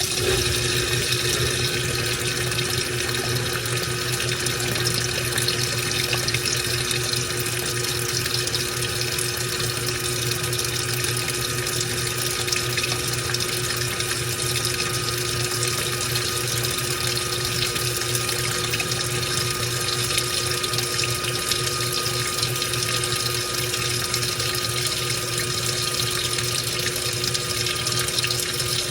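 Washing machine working a load of towels: a steady rush of water in the tub over a constant low machine hum.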